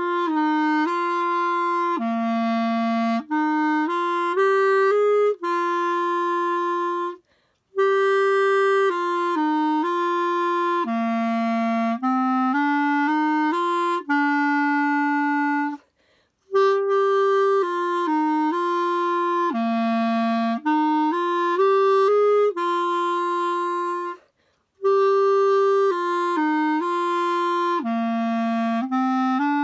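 Solo clarinet playing a calm melody in four phrases of about eight seconds each, with short breaks between them.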